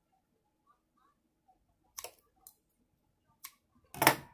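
Scissors snipping sewing thread: a few sharp clicks, with one much louder snap near the end.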